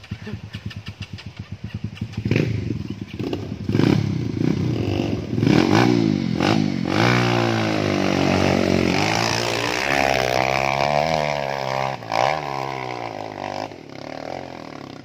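Dirt bike engines on a steep hill climb: a slow, popping chug for the first couple of seconds, then hard revving that rises and falls in pitch under heavy throttle, easing off near the end.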